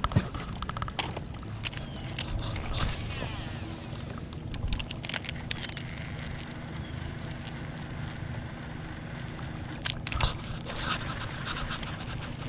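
Baitcasting reel being worked through a cast and retrieve: the spool whirs briefly about three seconds in, then the cranked reel gives small clicks and scrapes. A steady low hum runs underneath.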